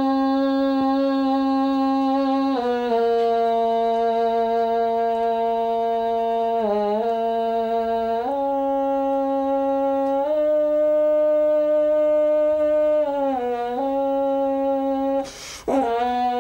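A long, thin curved tube horn blown through a mouthpiece, sounding held notes of two or three seconds each that step between nearby pitches. About fifteen seconds in the note breaks off for a quick breath, then starts again.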